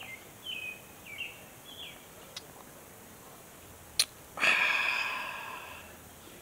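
A small bird chirps four short falling notes, then a sharp click and a stemmed beer glass clinked in a toast, ringing out and fading over about a second and a half.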